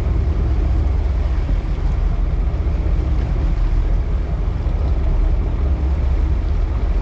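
A sport-fishing boat's engine running steadily under way, a low rumble mixed with wind and rushing water.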